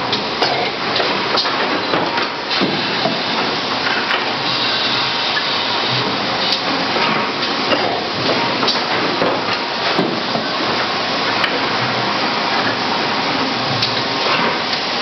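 Factory machinery running: a steady, hissing din with frequent irregular clanks and knocks through it.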